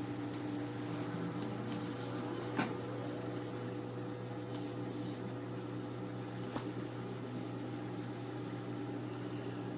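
Steady low mechanical hum of a household machine, with a couple of faint clicks.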